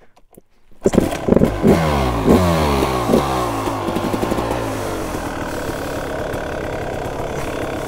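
Kawasaki KX250 dirt bike engine starting up about a second in, revved with several quick blips of the throttle, then settling to a steady idle.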